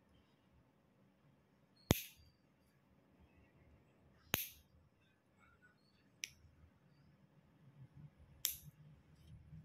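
Stainless-steel nail nipper snipping at the edge of a toenail: four sharp snips, roughly two seconds apart.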